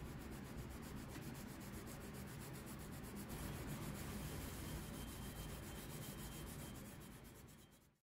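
Green nylon scouring pad rubbed lightly back and forth over the steel blade of a 1950s Stanley carpenter's square, a faint rasping scrub in quick, even strokes. It fades and cuts off near the end.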